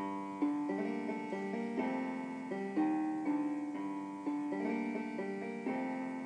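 Piano music: a slow repeating figure of notes, about two or three struck each second and left to ring over one another.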